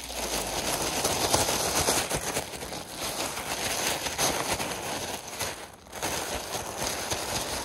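Zip-lock plastic bag shaken hard, the plastic crinkling and the crushed tortilla chips and fish chunks inside rattling. There is a brief pause just before six seconds in.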